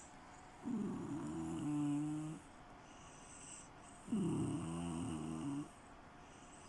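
Snoring in deep sleep: two long, rattling snores about three and a half seconds apart, each lasting a second and a half to two seconds, with quiet breaths between.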